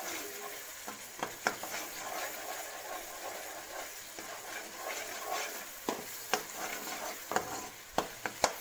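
Onion, garlic, ginger and tomato masala sizzling in hot oil in a wok while it is being fried down (bhuna). A metal spoon stirs it, scraping and knocking sharply against the pan a few times, most often near the end.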